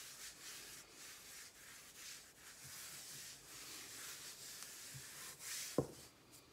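Soft, repeated swishing strokes of a hand rubbing and spreading flour across a silicone baking mat, ending in a single sharp knock.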